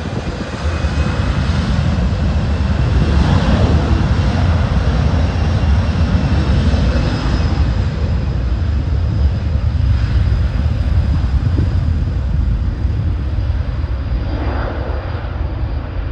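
Boeing 737 jet taking off at full thrust: a heavy, steady rumble with a high whine from its two turbofan engines, growing louder about a second in and staying loud through the climb-out.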